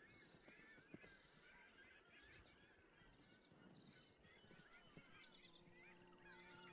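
Faint, overlapping chorus of many short bird calls. A faint steady hum comes in about five seconds in.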